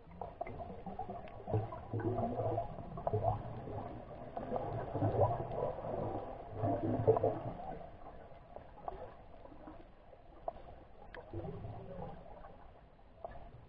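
Underwater sound picked up by a submerged camera: muffled rumbling and gurgling that swells in uneven bursts over the first half and then eases off, with scattered sharp clicks throughout.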